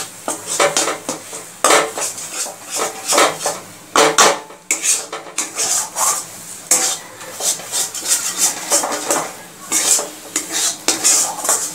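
Metal spatula scraping and stirring a thick paste around a metal kadai in a run of irregular strokes. The paste is being stirred continuously so its water cooks off and it does not stick to the bottom of the pan.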